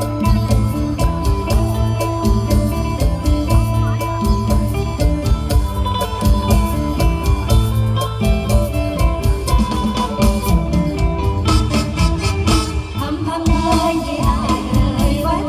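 Live luk thung–mor lam band music with a steady drum beat, mostly instrumental, with a voice singing in the last few seconds.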